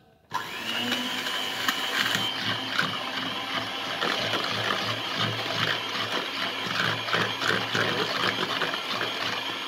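Electric hand mixer switched on just after the start and running steadily, its beaters whisking egg yolks and sugar in a bowl, with a held high whine over a low motor hum.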